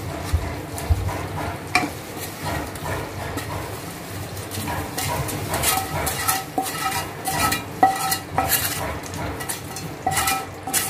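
Wooden spatula scraping and knocking fried chicken pieces out of one frying pan into a second pan of gravy. Repeated clacks and scrapes sound against the metal of the pans, and they come thicker in the second half.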